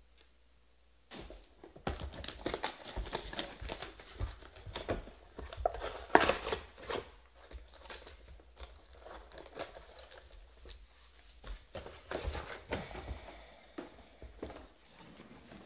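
Packaging of a 2020 Panini Prizm Draft football card box being torn open and crinkled by hand. A dense run of crackles and short rips starts about a second in, is loudest around the middle, and thins out toward the end.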